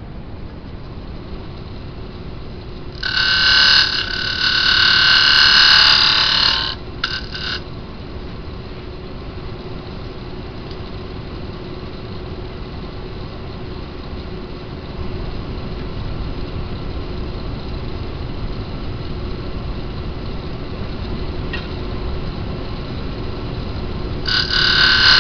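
Wood lathe running with a steady hum while a hand-held turning tool cuts into the spinning wooden vase. There is a loud cut from about three to seven seconds in, a brief touch just after, and another cut starting near the end.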